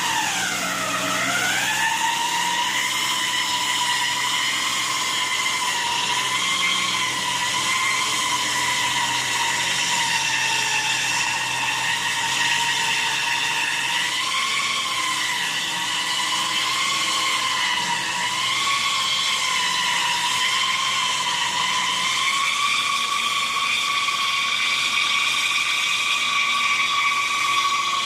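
Flatbed tow truck's drive wheels spinning on ice, a high wavering whine as the tires lose traction on the icy hill. The pitch dips and climbs back about a second in, then holds fairly steady.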